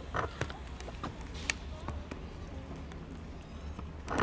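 Kittens eating wet cat food: irregular wet smacking and chewing clicks, several a second, over a low steady hum.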